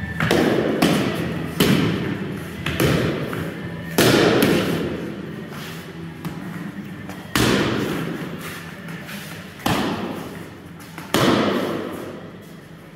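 Training swords striking shields and fighters during sword-and-shield sparring: about eight sharp thuds at irregular intervals, with a quieter stretch midway. Each blow echoes and dies away slowly in a large, hard-walled hall.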